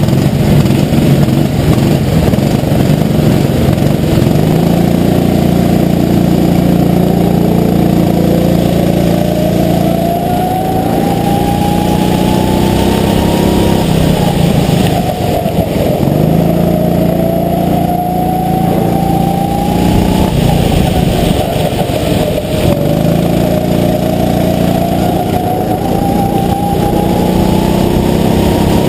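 Onboard kart engine, running at low, steady revs for the first few seconds, then accelerating. Three times its pitch climbs steadily along a straight and drops sharply as the throttle is lifted for a corner, over a steady hiss.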